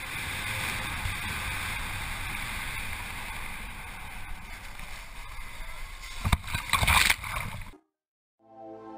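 Steady rushing noise, then a few loud knocks near the end before the sound cuts out.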